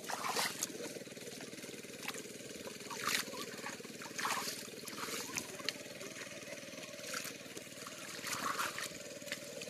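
Splashing and sloshing of feet and hands moving through shallow muddy water in a flooded paddy field, coming in irregular bursts every second or few.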